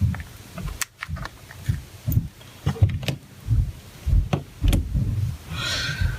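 Small metal clicks and taps with low bumps and rubbing: an iPhone 4S being opened by hand, its bottom screws taken out with a small screwdriver and the back cover slid off.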